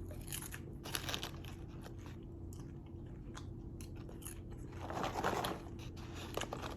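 A person chewing crunchy microwave popcorn close to the microphone, with scattered soft crunches and a denser spell of chewing about five seconds in.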